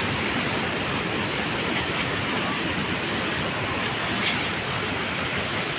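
Dhuandhar Falls on the Narmada river: a steady rush of falling water.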